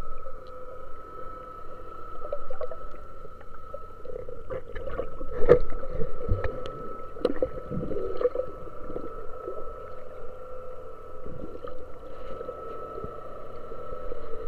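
Boat engine hum carried through the water, heard underwater as a steady two-tone drone. Clicks and bubbling sounds cluster between about four and nine seconds in.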